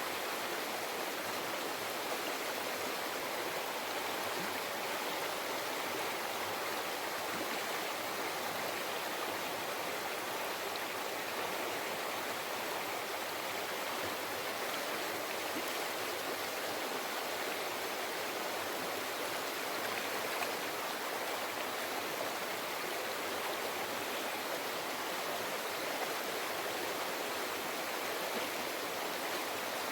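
River water flowing and babbling over rocks, a steady even rush.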